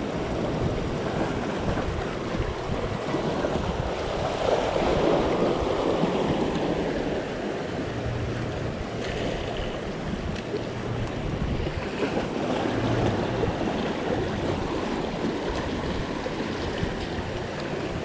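Ocean surf washing in and out among jetty boulders, one surge swelling louder about four to six seconds in, with wind buffeting the microphone.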